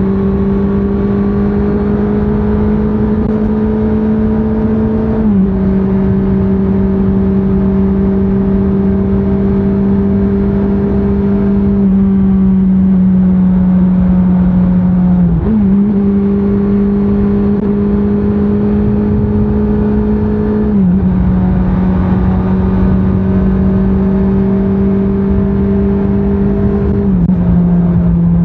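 2024 Honda CBR650R's inline-four engine running under way at fairly steady revs, its pitch stepping slightly every few seconds, with a quick dip and rise about fifteen seconds in. Wind and road noise run beneath it.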